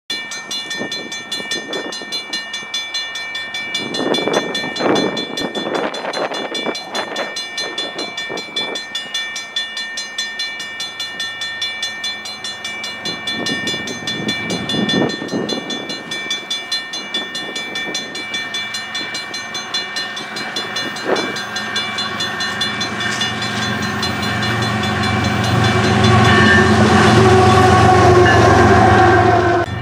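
An approaching CN stack train: the lead GE Evolution-series diesel locomotives sound their horn twice, once about four seconds in and again about fourteen seconds in, then their V12 engines grow steadily louder and pass close near the end, with wheels on rail. A steady, pulsing high ringing runs underneath throughout.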